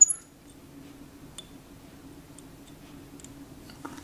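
Thread being wound around a fly hook in a vise with a bobbin holder: one sharp click with a brief high ring at the start, then a few faint ticks over a low steady hum.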